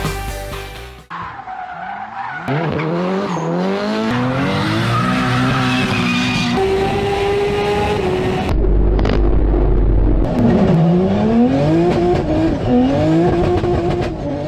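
A car engine revving hard through the gears, its pitch climbing and then falling back at each shift, with a short deep rumble about nine seconds in.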